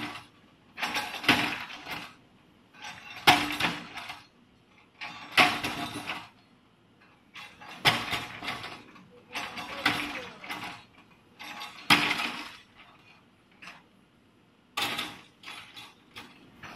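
Concrete slab and rubble cracking and clattering under a JCB 3DX backhoe bucket, in short crunching bursts about every two seconds with quiet gaps between.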